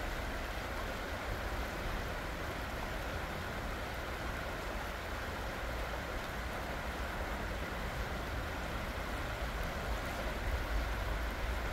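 Creek water rushing steadily over rocks, with a low rumble underneath.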